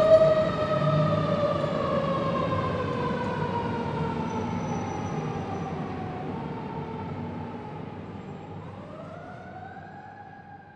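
Fire truck wail siren slowly falling in pitch, then starting to wind up again near the end, over the low rumble of the truck's engine. It fades steadily as the truck moves away.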